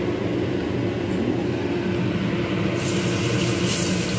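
Spice paste of ground garlic, candlenut and salt starting to sizzle in hot oil about three seconds in, a hiss that grows stronger toward the end, over a steady low hum with a few held tones.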